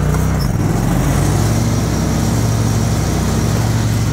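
Cub Cadet commercial zero-turn mower's Kohler Command Pro 25 hp V-twin engine running steadily while the mower drives across the lawn. The engine note shifts briefly about half a second in, then settles.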